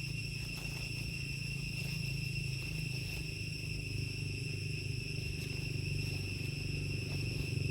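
Insects calling in a steady, unbroken high-pitched drone, over a constant low rumble of background noise with a few faint clicks.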